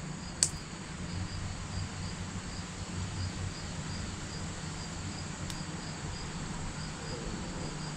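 Crickets chirping steadily, a high pulse repeating about three times a second, over a low steady hum. There is one sharp click about half a second in.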